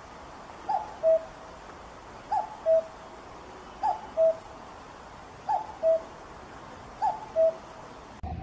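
Common cuckoo calling its two-note "cu-ckoo", the first note higher than the second, five times at a steady pace of about one call every one and a half seconds.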